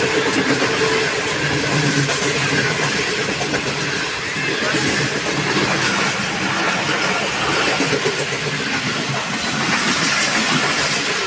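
Pakistan Railways Green Line express coaches rushing past at speed on the adjacent track, close by: a steady, loud rush and rumble of wheels on rail and wind.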